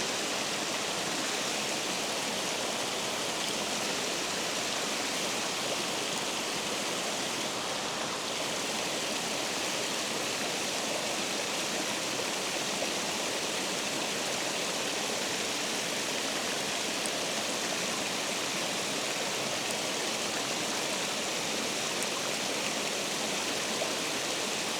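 Water rushing steadily over a spillway: an even, unbroken wash of noise with no change in level.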